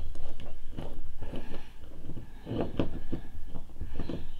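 Glass bottle of Tamiya plastic cement being handled on a desk and its screw cap twisted off: a series of small clicks and knocks.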